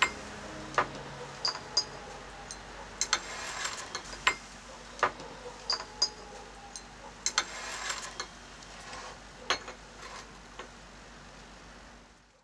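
Table being set: scattered clinks of cups and saucers placed on a table and knocks of chairs moved on a tiled floor, some clinks with a brief high ring.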